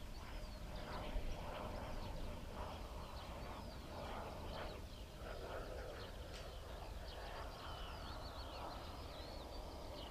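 Small birds chirping and twittering in quick, repeated short calls, over a steady low rumble of wind on the microphone.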